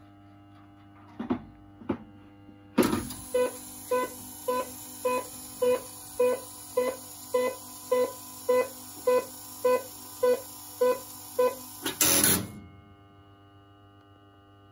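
Electromechanical telephone exchange under test: two sharp switching clicks, then a loud click and a run of about fifteen short beeps of a pulsed signalling tone, just under two a second. It ends in a loud clatter of switching, and a steady mains hum runs underneath.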